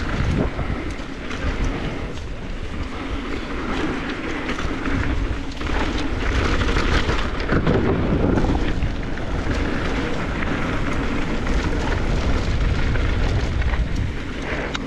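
Downhill mountain bike rolling fast over a dirt trail and across a wooden North Shore ramp: low tyre rumble and a constant clatter of the bike's parts, with wind buffeting the microphone.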